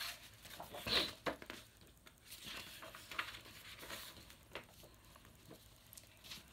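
Paper rustling as the pages of a paperback book are handled and turned, loudest about a second in, then faint scattered rustles.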